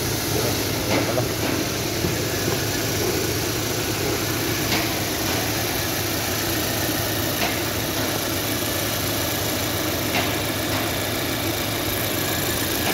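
Ford Territory engine idling steadily in the engine bay, with a few light clicks over it. The vibration is traced to a worn engine mount whose rubber has lost its clearance and touches the metal.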